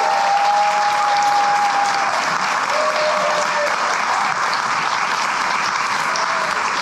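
Audience applauding steadily, with voices in the crowd holding long cheers over it: one through the first two seconds, a shorter one about three seconds in, and a brief one near the end.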